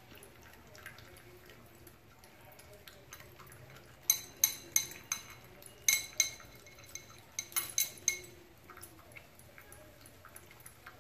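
Dog eating from a ceramic bowl, with faint chewing and a run of sharp ringing clinks between about four and eight seconds in as its hanging metal tags knock against the bowl.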